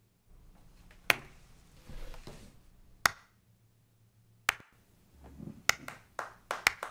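A slow clap: single hand claps about one and a half to two seconds apart, then quickening near the end as a second person joins in.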